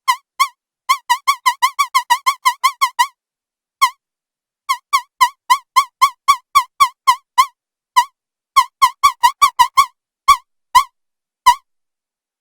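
Synth1 software synthesizer playing short squeaky chirps, each wavering up and down in pitch, in irregular runs of quick repeats with short gaps: a synthesized imitation of a cloth squeaking across window glass.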